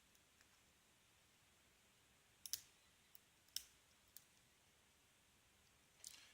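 Lock pick working the pin stack of an American Lock 5200 series padlock under tension: a handful of sharp, light metallic clicks, loudest a little over two and a half seconds in and again at three and a half, as the pins are picked.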